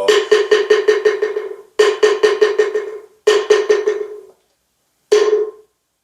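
Moktak (Buddhist wooden fish) struck in rapid rolls of about eight strokes a second: four rolls with short gaps, each fading out, the last one short. These are the closing rolls that end the chant.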